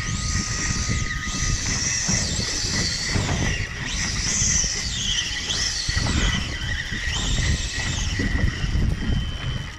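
Rough wind-and-motion noise on a small fishing boat, with high squeals that glide up and down again and again over it.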